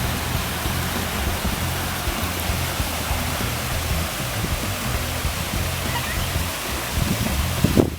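Steady rushing noise of a waterfall, with background music's low notes playing under it.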